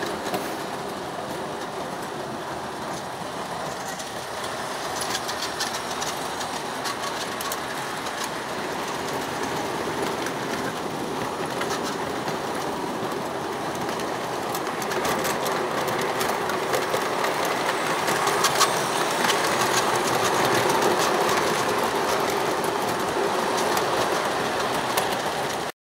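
ACE Trains O gauge model trains running on the layout's track: a steady whirr of wheels and motors with many small clicks from the wheels on the rails, getting louder in the second half as a train passes close by.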